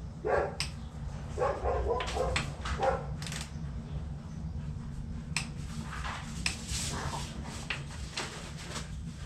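A dog whines and yips in short calls several times in the first three seconds. A run of sharp clicks and knocks from hand tools on the motorcycle follows, over a steady low hum.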